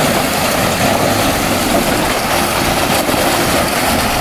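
Jeep Wrangler's engine running steadily under load as it crawls over muddy rocks, with a dense rushing noise over it.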